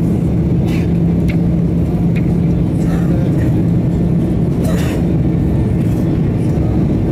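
Airbus A330-300 jet engines and airflow heard from inside the cabin while climbing out after takeoff: a loud, steady roar with a constant low hum.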